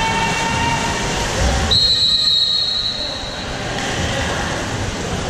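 Referee's whistle in a water polo game: one long, shrill, steady blast lasting about a second and a half, a couple of seconds in. It sounds over the hubbub of a reverberant indoor pool, with voices calling out before and after it.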